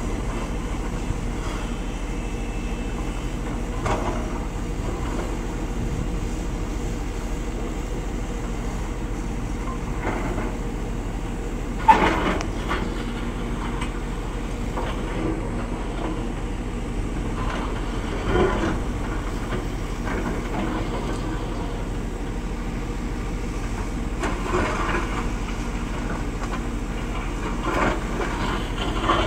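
JCB JS225 tracked excavator working, its diesel engine running steadily under load as it digs, with occasional short knocks from the machine; the loudest knock comes about twelve seconds in.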